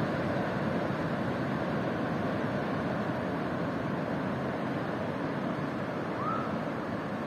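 Ocean surf: a steady rushing wash of waves breaking and running up the beach. A brief faint chirp sounds about six seconds in.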